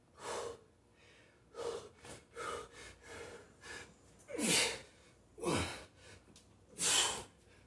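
A man breathing hard under exertion while lifting dumbbells: about seven forceful breaths in and out, several ending in a falling grunt. The strongest come a little past four seconds in and again near the end.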